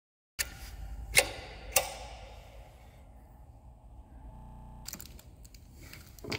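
Stainless-steel hose coupling parts clicking together in the hands: two sharp clicks about a second in, half a second apart, then a few fainter handling clicks near the end.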